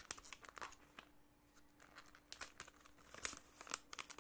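Biscuit packaging being worked open by hand, faint scattered crinkling and tearing. A quiet stretch of about a second comes after the first crackles, then a denser run of crinkles near the end.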